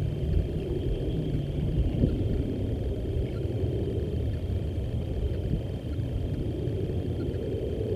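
A steady low rumble, with a thin, steady high tone running above it.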